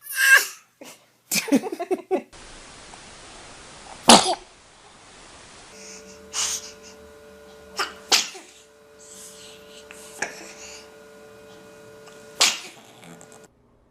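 Babies sneezing: a string of short, sharp sneezes, about half a dozen, the loudest about four seconds in.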